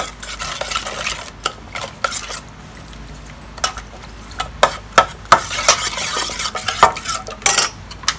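Metal spoon stirring a watery chili, shallot, fish-sauce and lime dressing in an aluminium saucepan: the liquid swishes while the spoon clinks and scrapes against the sides of the pot, most busily in the second half.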